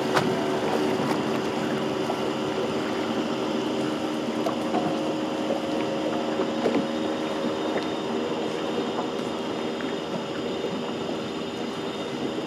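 Boat's outboard engine running steadily at idle, a constant hum with no change in speed.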